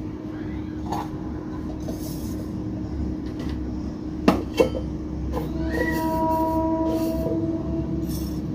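A steady low rumble and hum, with two sharp clinks of a steel spoon against a steel tumbler about four seconds in, and a steady whistle-like tone lasting about two seconds just after.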